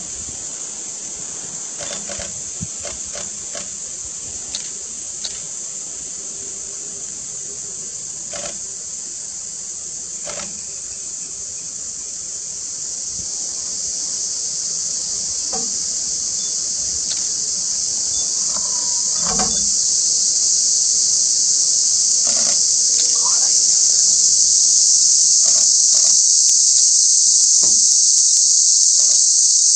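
Steady high-pitched insect chorus, growing louder over the second half, with scattered faint clicks and knocks.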